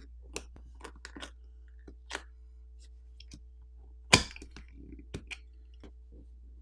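Plastic pry tool clicking and tapping against a phone's plastic back plate as the plate is pried off its adhesive, with one loud sharp crack about four seconds in.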